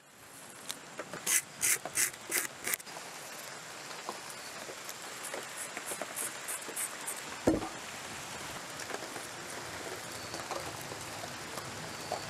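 A hand-held marking blade scratching short strokes into a log's surface, scoring layout lines: about five loud scrapes in the first few seconds, then a quicker run of fainter ones. A single knock comes about halfway through.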